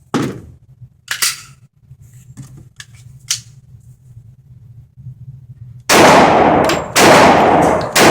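Metallic clicks and clacks of a Glock 21 pistol being handled while clearing a failure to feed, then, about six seconds in, three very loud .45 ACP pistol shots about a second apart, each with a long echoing tail.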